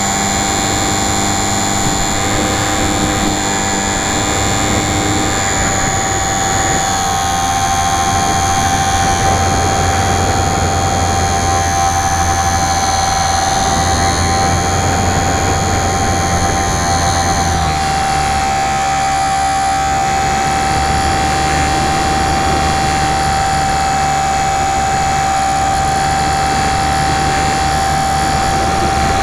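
Electric motor and propeller of a Super Cub model airplane in flight, heard from on board: a steady whine with a low hum under rushing air. About two-thirds of the way through, the high part of the whine fades and the low hum changes pitch.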